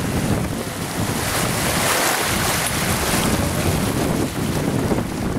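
Wind buffeting the microphone over the rush of water along a sailboat's hull as it sails. The rushing swells a little about two seconds in.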